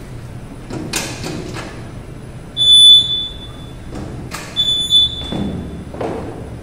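Clear plastic front cover of a computerized flat knitting machine being slid along its rail, with a rushing sliding noise several times. Twice, the machine's buzzer gives a short, high, steady beep of about half a second; the first beep is the loudest sound.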